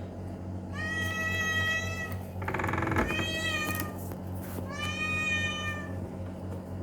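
Domestic cat meowing three times in long, drawn-out meows, with a short rasping sound just before the second one; a steady low hum underneath.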